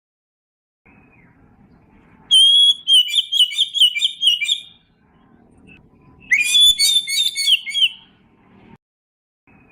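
Oriental magpie-robin singing: two bursts of loud, rapid whistled phrases about two seconds each, separated by a pause of a couple of seconds.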